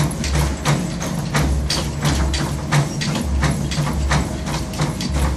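Running footfalls thudding on a treadmill belt at speed (about 7.5 mph), a rapid, even beat of about three strikes a second with deeper thumps under them.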